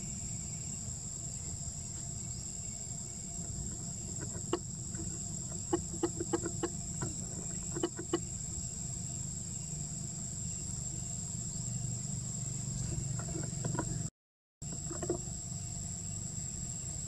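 Outdoor ambience: a steady high-pitched insect drone over a low rumble, broken by a few short runs of quick clicks around the middle and again near the end. The sound cuts out completely for about half a second near the end.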